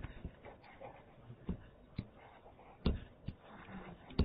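A handful of faint, sharp taps, about five spread unevenly over a few seconds against low room noise: a pen or stylus tapping on a writing tablet while drawing.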